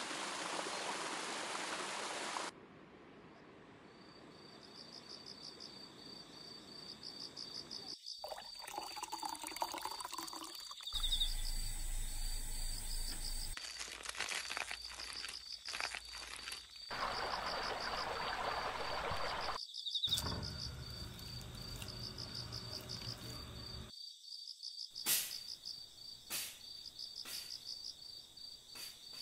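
Stream water running, then insects chirping in a steady string of quick pulses, with more water sounds that change at several abrupt cuts.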